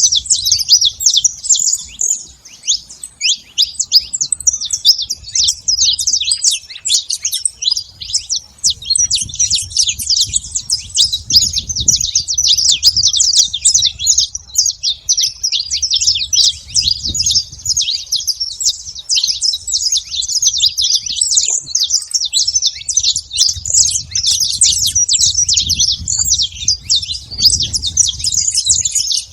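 A flock of saffron finches chirping and calling over one another in a dense, unbroken chatter. A low rumble comes and goes underneath.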